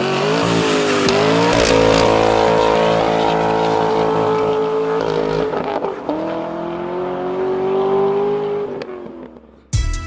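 A car engine revving hard under acceleration: its pitch climbs, holds steady, drops about five seconds in, climbs again, then fades out near the end.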